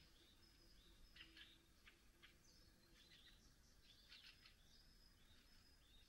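Faint birdsong: several small birds giving short chirps and trills throughout, with a faint low note repeating underneath.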